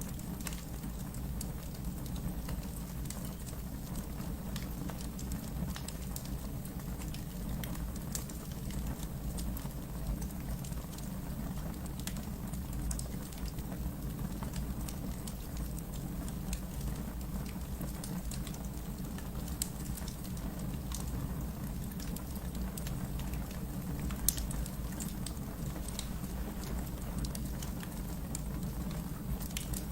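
Wood fire burning in a fireplace, a steady low rumble of flames with scattered small crackles and one louder pop about two-thirds of the way through.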